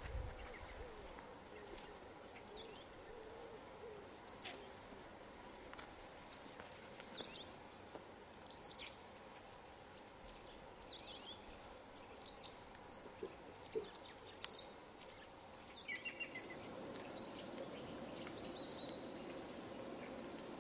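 Faint outdoor ambience with scattered short bird chirps and calls over a low steady background hum, a few of them bunched together about sixteen seconds in.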